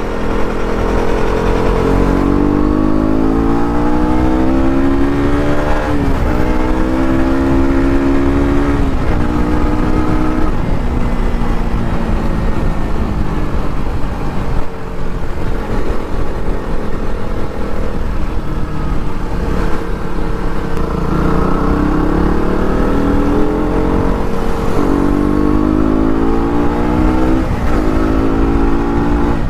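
KTM RC sport motorcycle engine accelerating through the gears. From about two seconds in, the pitch climbs in three pulls, each ending in a drop at an upshift. Then comes a steadier cruise, and near the end another run of three rising pulls and shifts.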